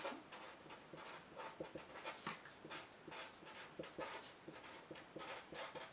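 Felt-tip marker writing on a sheet of paper: a faint run of short, quick strokes as capital letters are drawn.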